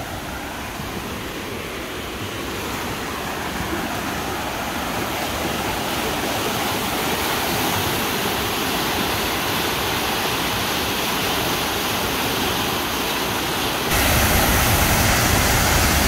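Swollen river rushing over rapids beneath a footbridge: a steady rush of whitewater that slowly grows louder. About fourteen seconds in it jumps suddenly louder and fuller as the sound becomes the waterfall itself, pouring over a rock ledge.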